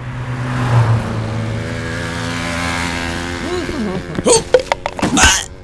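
A car driving past, its engine a steady hum for about the first three and a half seconds. Then come a man's short strained vocal sounds and a few sharp clicks and knocks.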